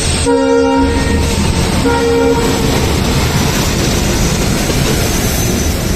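Train horn sounding two short blasts as another train comes in, followed by the steady rumble and clatter of the moving train.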